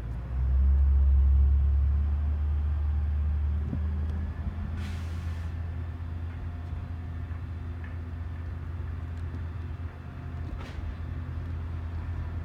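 Crane truck's engine running with a steady low rumble, louder for the first few seconds, then settling. About five seconds in there is a short hiss of released air.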